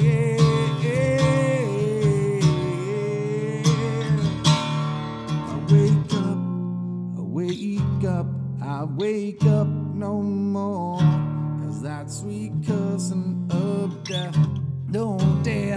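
Acoustic guitar music: strummed and picked guitar chords with a wavering melody line above them.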